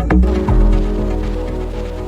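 Music: the drum hits stop about half a second in, leaving held chords over a deep bass that slowly fades.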